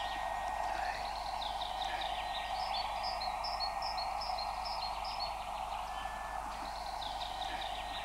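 A radio-tracking receiver gives a steady static hiss with no transmitter beeps: no signal from the wolves' radio collars. Small birds sing over it in short, high, repeated chirps.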